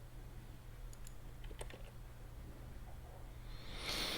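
A few sparse computer keyboard and mouse clicks over a steady low hum, with a soft hiss near the end.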